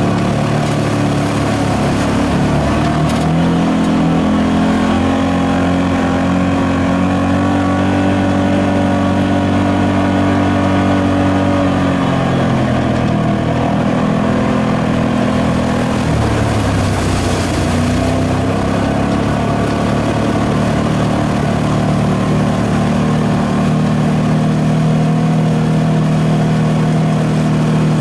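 Side-by-side UTV engine running under load while driving up a shallow river bed, its pitch rising and falling with the throttle. The pitch drops twice midway, then climbs back. Water splashes under the tyres.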